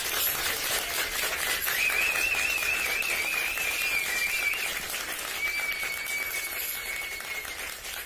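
Crowd applauding with a long wavering whistle from someone in the audience, then a second, steady whistle.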